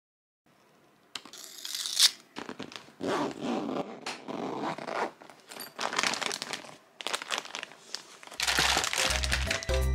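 Zipper on a canvas tote bag being pulled open, followed by the crinkling of plastic-wrapped snack packages being handled inside the bag. Background music comes in near the end.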